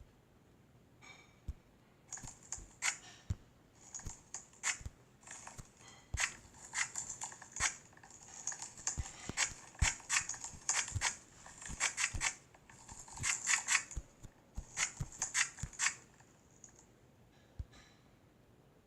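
Slime being squished and worked, giving off rapid crackling clicks and pops as air pockets burst, from about two seconds in until it stops near sixteen seconds.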